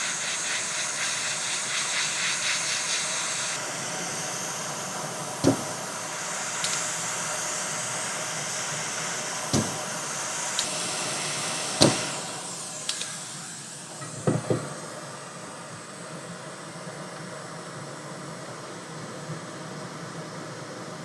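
Hot-air heat gun blowing steadily with a hiss, warming the solder around the pins of a removed USB port on a PlayStation 5 motherboard. A few sharp clicks come through the hiss, and the blowing gets quieter about two-thirds of the way through.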